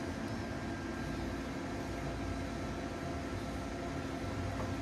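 Steady machine hum with several fixed tones: the workshop's background room tone, with no distinct tool sounds standing out.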